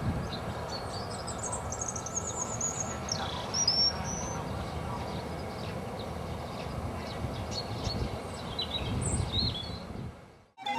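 Small birds chirping and twittering over a low, steady rumble from the departing train, which fades out near the end.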